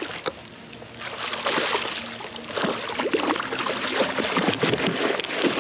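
A pike thrashing and splashing at the water's surface as it is brought into a landing net, with water sloshing; the splashing starts about a second in and goes on in short irregular bursts.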